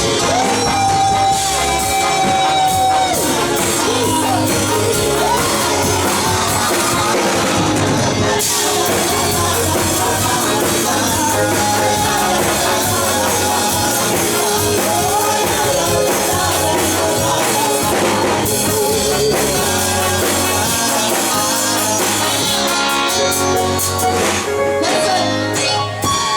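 Live church worship music: a band playing with a steady beat while voices sing.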